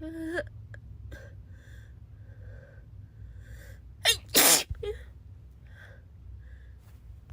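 A girl sneezing: one loud, sudden sneeze about four seconds in, after a short voiced sound at the start.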